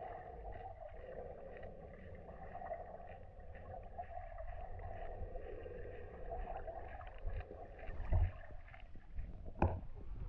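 Underwater sound of a Florida manatee grazing on seagrass: a steady muffled hum scattered with many small clicks and crunches from its munching. Two heavy thumps come near the end.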